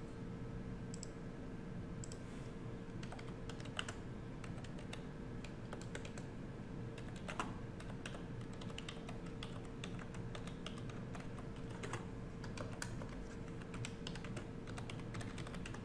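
Typing on a computer keyboard: a quick, irregular run of key clicks, over a faint steady hum.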